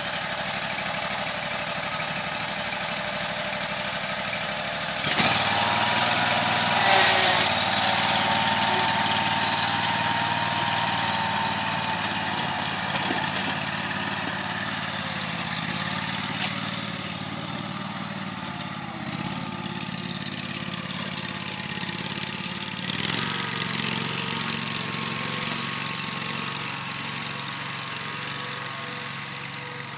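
Riding lawn mower engines running steadily, jumping suddenly louder about five seconds in and then slowly fading.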